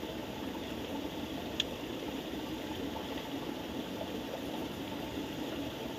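Steady rush of flowing stream water, with one small click about a second and a half in.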